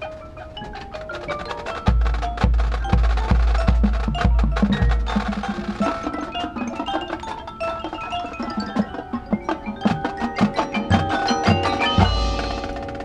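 Marching band percussion playing a fast passage: struck mallet notes of marimba, xylophone and glockenspiel with bell-like chimes, over a run of deep drum hits about two seconds in and another heavy hit near the end.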